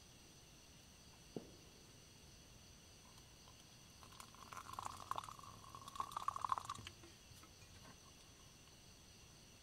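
Water poured in a thin stream from a gooseneck kettle into an enamel mug for about three seconds midway, over steady high insect chirring. A single light knock comes about a second in.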